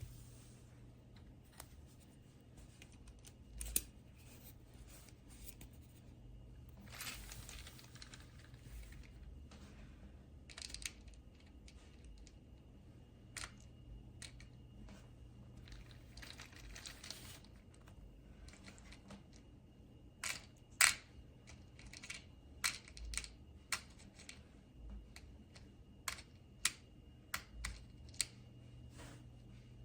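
Scattered small clicks and taps, with a couple of short rustling stretches, over a low steady hum.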